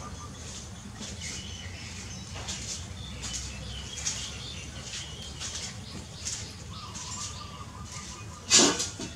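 Newborn puppies suckling from their mother dog: irregular wet smacking and sucking clicks throughout, with one louder sharp sound near the end.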